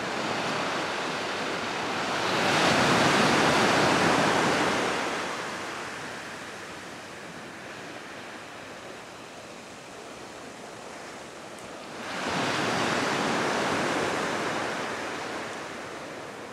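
Ocean waves breaking on the shore: two surges of rushing surf, the louder one about two to five seconds in and another about twelve seconds in, over a steady wash of sea noise.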